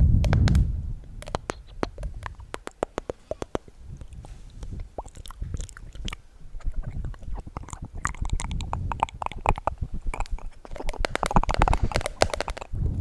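Close-miked ASMR mouth sounds: a long, irregular run of wet clicks and smacks. A loud low rumble fades out in the first second.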